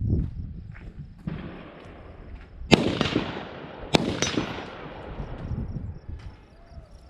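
Two gunshots about a second apart, each a sharp crack followed by a long echo that dies away slowly.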